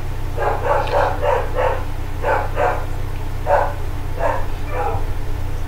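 A dog barking repeatedly: about a dozen short barks in quick, irregular succession.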